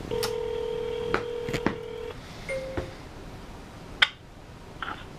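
Telephone ringback tone from a smartphone: one steady ring lasting about two seconds, followed by a short blip and a few sharp handling clicks.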